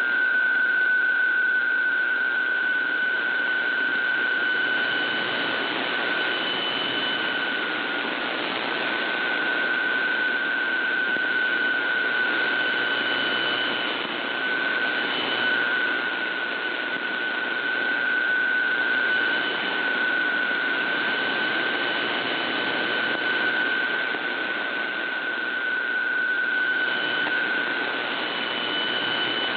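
Shortwave receiver audio of a PSK125R digital data signal: a steady mid-pitched tone buried in heavy band hiss and static on a weak, marginal signal, fading briefly a few times. A fainter higher tone comes and goes over it.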